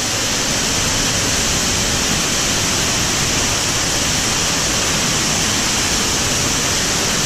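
Steady, loud rush of a large waterfall, heard from inside the misty tunnel that runs underneath it.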